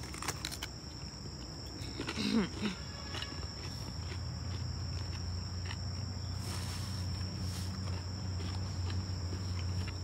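Steady high-pitched chirring of insects, with a few crisp crunches of a bite at the start and a brief voiced hum about two seconds in. A low steady hum comes in after about four seconds.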